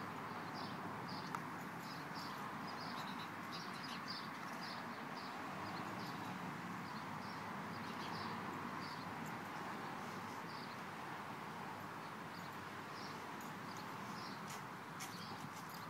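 Short, high chirps repeating about once or twice a second over a steady outdoor background hiss, with a few sharp clicks near the end.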